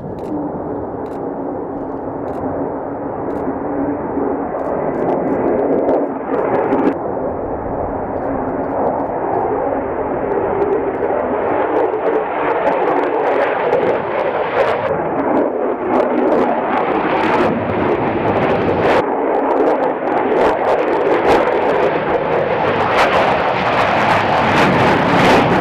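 Jet engine of a US Air Force F-35A Lightning II (a single F135 turbofan) flying past low overhead: a broad roar that builds steadily louder and brighter, with sharp crackles that thicken near the end.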